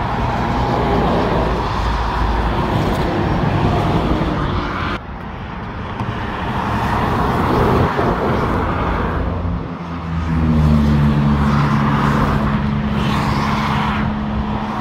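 Motorway traffic passing at speed: a continuous roar of tyres and engines from lorries and cars. About ten seconds in, a heavier vehicle's engine adds a steady low drone.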